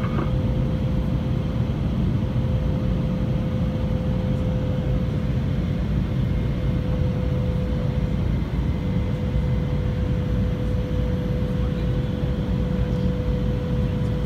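Jet airliner cabin noise in flight: a steady low rush of engines and airflow, with a thin steady hum running through it.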